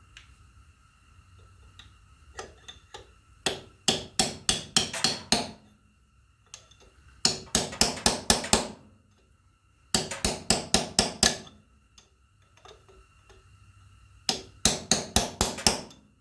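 A hammer driving a steel punch in four bursts of rapid metal-on-metal strikes, about seven strikes per burst, with pauses between.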